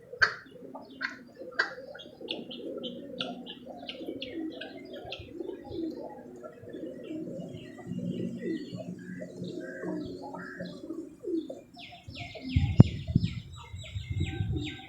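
Pigeons cooing steadily, with other birds chirping over them. Near the end comes a quick run of high chirps and a few loud low thumps.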